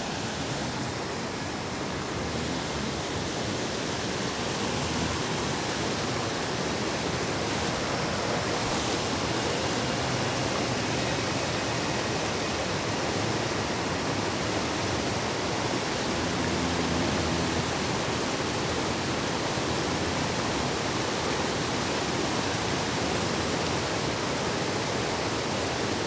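Creek water pouring over a waterfall into a churning plunge pool: a steady rush of water, a little louder after the first few seconds.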